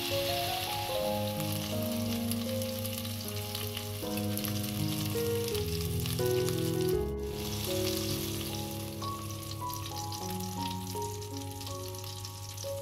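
Chicken breast skewers frying in hot oil in a pan, giving a steady crackling sizzle, with background music carrying a melody underneath.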